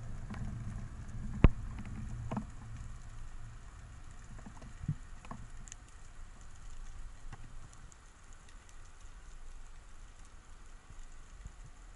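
Underwater ambience heard from a speargun-mounted camera: a faint crackling patter with scattered clicks. A low rumble runs through the first couple of seconds, and one sharp, loud click comes about a second and a half in.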